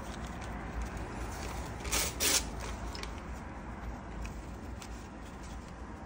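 Newspaper rustling and crinkling as a sheet is handled and pressed down by hand, with two sharp, louder crinkles about two seconds in.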